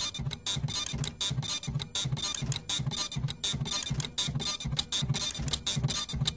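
Dot matrix printers played as music: rapid, high-pitched print-head buzzing in short rhythmic bursts over a low pulse about three times a second.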